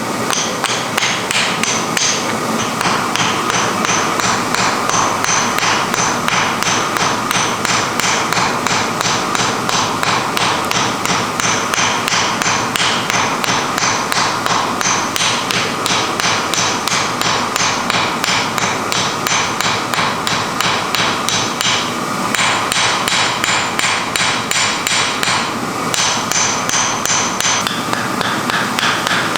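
Steady forging hammer blows on iron, about three strikes a second with a ringing note, broken by two short pauses near the end.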